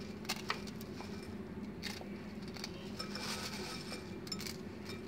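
Dry Maggi instant noodles being crushed by hand in a glass bowl: faint crackling of the brittle noodles, with scattered sharp clicks and clinks against the glass.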